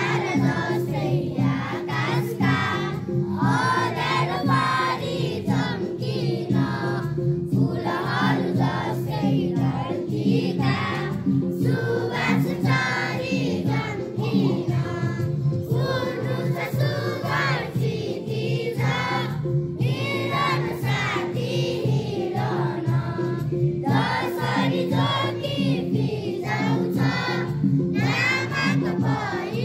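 A large group of schoolchildren singing together over a steady instrumental accompaniment.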